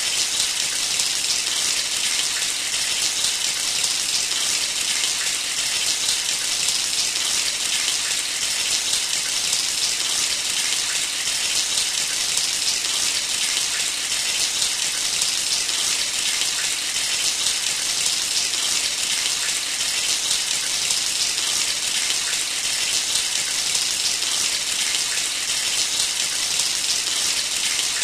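Shower running: a steady spray of water hissing down, with no change in flow.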